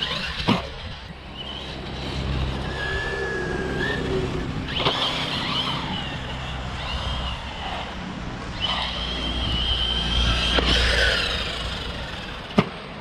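Electric RC car's motor whining, its pitch rising, falling and holding as the car speeds over skate-park ramps, with a few sharp knocks as it lands its jumps.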